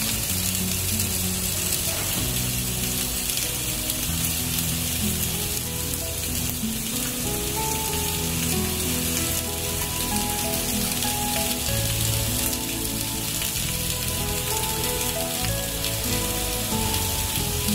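Steaks frying in a hot ridged grill pan: a steady sizzling hiss. Background music with a simple melody plays underneath.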